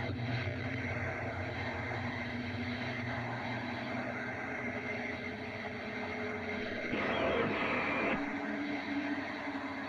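Scary sci-fi space drone: several low and middle tones held steady over a hiss, with a louder noisy swell lasting about a second, some seven seconds in.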